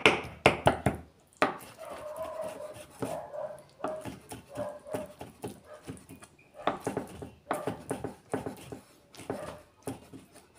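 A large kitchen knife rapidly chopping and mincing raw chicken on a wooden log chopping board, fast sharp knocks of the blade on the wood. The chopping stops about a second in, leaving a faint wavering tone for a few seconds, and resumes, slightly softer, for the last few seconds.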